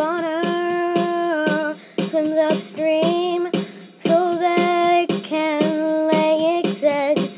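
A child singing a tune in long held notes, the pitch bending slightly between notes, with short breaks about two and four seconds in.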